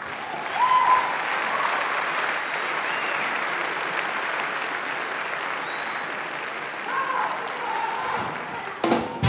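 Large audience applauding steadily, with a few short cheers over the clapping.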